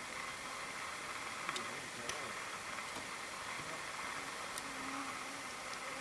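Faint, steady outdoor background hiss with a few faint ticks.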